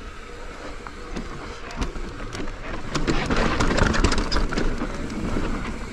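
Mountain bike rolling down a dirt singletrack: knobby tyres crackling over dirt and loose gravel, with wind rumbling on the microphone. It grows louder about halfway through as the bike picks up speed.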